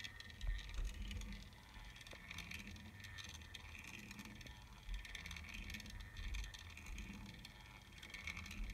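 Small rod-turning motor slowly spinning a fishing rod in its chuck: a faint steady whir with a soft pulse repeating about every three-quarters of a second. A couple of low handling bumps within the first second and another about five seconds in.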